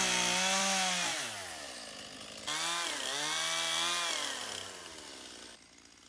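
Chainsaw cutting through a felled tree trunk, its engine note sagging as the chain bites into the wood and climbing again. There are two stretches of cutting, the second starting suddenly about two and a half seconds in, and the saw falls away shortly before the end.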